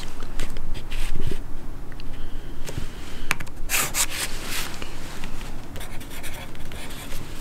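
Pencil scratching across paper on a clipboard in short, uneven strokes as lines are drawn.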